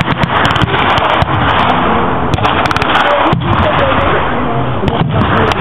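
Blank gunfire from World War II reenactors' weapons: scattered shots and short quick bursts, irregularly spaced, over a steady rushing background with faint voices.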